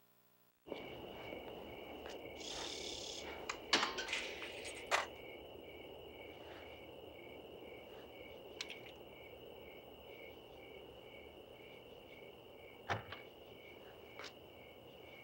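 Crickets chirping steadily, about two chirps a second, over a faint night ambience, with a few sharp clicks and knocks, the loudest about four to five seconds in. It starts after a moment of silence.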